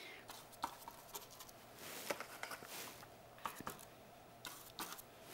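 Faint, irregular small clicks and light brushing of a paintbrush being worked in the paint and stroked across the paper.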